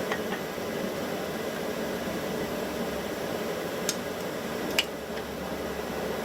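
Steady rushing noise of a running forge, with two short, light clicks about four and five seconds in.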